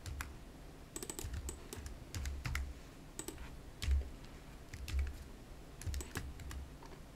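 Computer keyboard keys and mouse buttons clicking in short, irregular runs, with a couple of duller thuds about four and five seconds in.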